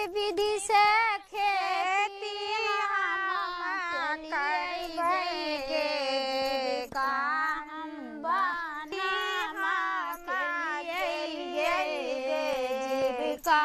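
A high-pitched voice singing or chanting in a wavering, continuous melody, sounding like a child's voice.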